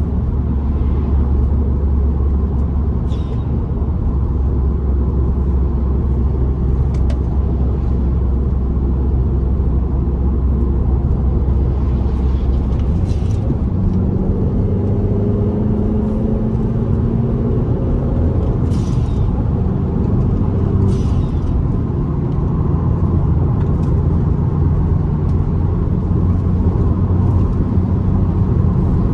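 Car engine and road noise heard from inside the cabin while driving: a steady low drone, with the engine note rising for a few seconds about halfway through as the car speeds up. A few brief hisses or clicks stand out above the drone.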